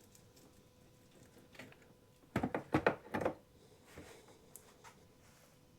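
A few quick scraping strokes close together about two and a half seconds in, then a couple of faint ticks: an uncapping scratcher raking wax cappings off a frame of honeycomb.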